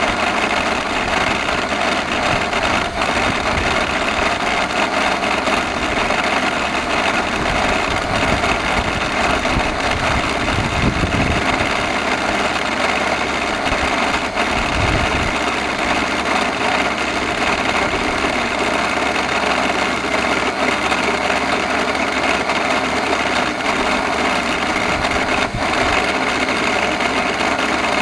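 Electrolux vacuum cleaner running steadily with its faulty motor, a loud constant whirring hum, with a couple of brief low rumbles about halfway through.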